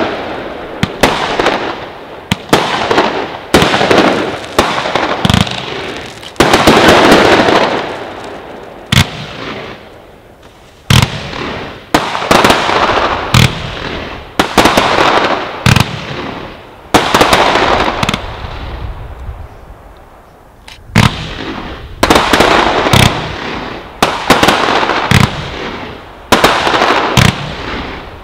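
Aerial fireworks bursting in quick succession: sharp bangs one after another, each trailing off in a long echo, with two short lulls, about ten and twenty seconds in.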